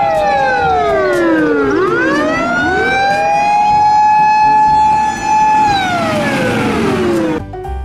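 Japanese fire engine siren wailing: a long held tone that slides down, climbs back up, holds, and slides down again near the end. A second siren wails a little out of step with the first. It cuts off suddenly just before the end.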